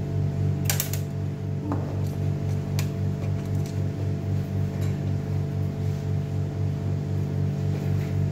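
A steady low hum pulsing about four times a second, with a few light clicks and taps of small parts being handled.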